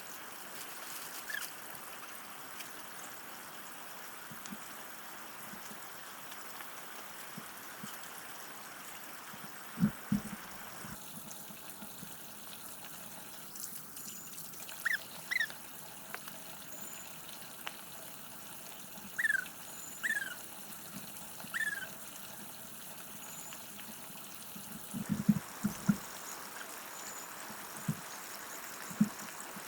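Water trickling steadily, with a few short, high, downward-sliding chirps in the middle and occasional dull knocks.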